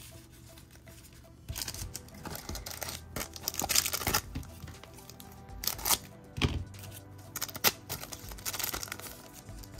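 Crinkling, rustling and tearing of a foil trading card pack wrapper and cards being handled, in bursts with a few sharp snaps, over quiet background music.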